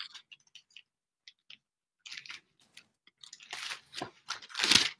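Faint ticks, then paper rustling in several short bursts from about three seconds in: Bible pages being turned to find a passage.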